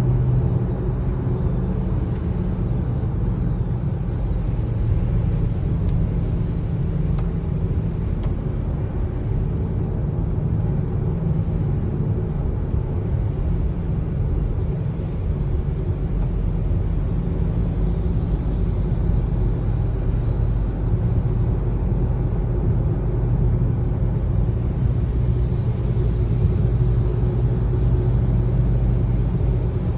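A 2020 Subaru Ascent driving, with a steady low hum over road rumble.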